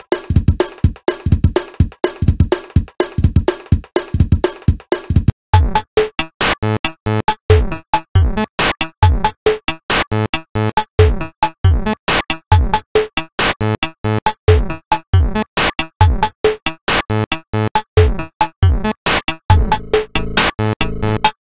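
Electronic tracker-made music: a drum-machine and synthesizer loop of short, sharp repeated hits. About five seconds in it turns duller and the hits come faster.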